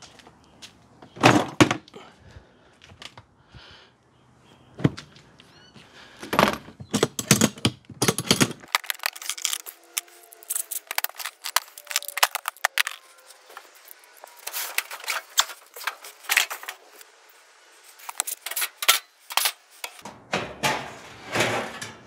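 Irregular clatter of clicks, knocks and rattles as the metal and plastic parts of an Electrolux clothes dryer are handled and unscrewed during its teardown.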